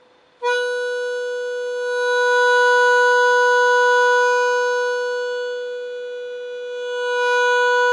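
A harmonica holding one steady note, fed through a tube LA2-style compressor set to light compression. It starts about half a second in, swells louder, eases off, then swells again near the end, the louder passages squeezed down slightly by the compressor.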